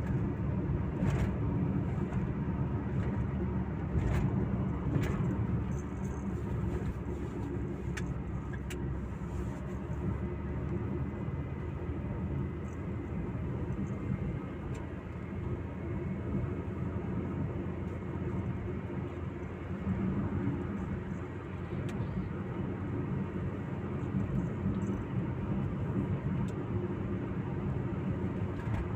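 Steady low road-and-engine rumble inside the cabin of a car cruising at highway speed. A few sharp ticks are heard in the first nine seconds or so.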